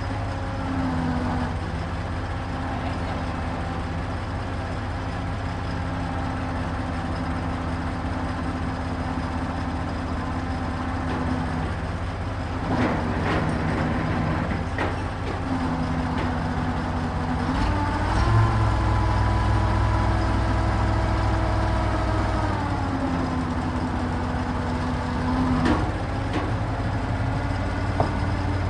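Truck crane's engine running steadily, its pitch rising past the middle and held for about five seconds as the engine works harder, then settling back. A few sharp metallic clanks are scattered through, around the middle and near the end.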